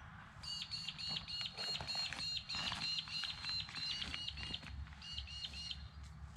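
A bird calling a rapid, even series of short, high chirps, about four or five a second, with a brief break a little before the end.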